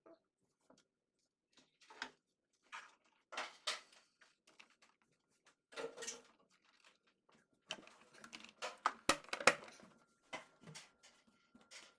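Hands feeding power-button cables down through a desk: irregular clicks, knocks and rustles of cable and plastic. They grow busier and louder about two-thirds of the way through.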